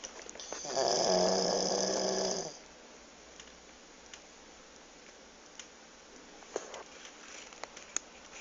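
American Staffordshire Terrier snoring: one long snore starting about half a second in and lasting about two seconds, followed by a few faint clicks.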